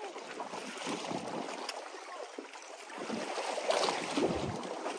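Sea water sloshing against a fishing boat's hull, with wind on the microphone, swelling louder a second in and again near the end.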